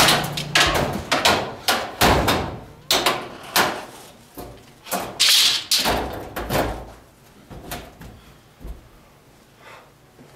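A door banging and thudding repeatedly, about one or two knocks a second, as it is pushed shut and held. The knocks grow weaker and die away after about seven seconds.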